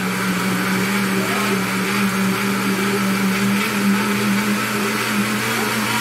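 Oster 15-speed, 1,400-watt blender running a jug of juice at high speed, a steady motor hum with a whooshing hiss. Its pitch climbs slightly as the speed knob is turned up toward maximum, at the top of the range where it gets noisy and vibrates a lot.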